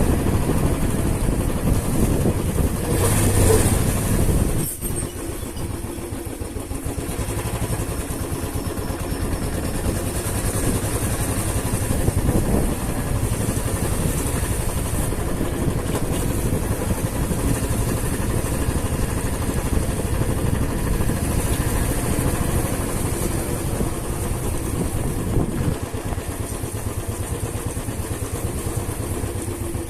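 Motorcycle engine running while riding, with road and wind noise. It is loudest for a stretch about three to four seconds in, drops suddenly, then carries on at a steadier level.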